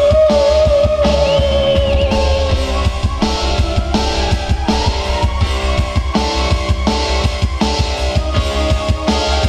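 Live stage music on an electronic arranger keyboard with a steady drum beat. A singer's held, wavering note fades out in the first two or three seconds, leaving an instrumental passage.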